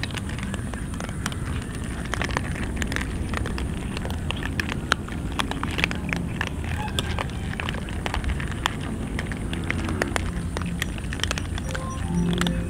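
Several cats crunching dry kibble from a metal tray: many quick, crisp, irregular clicks over a steady low background rumble.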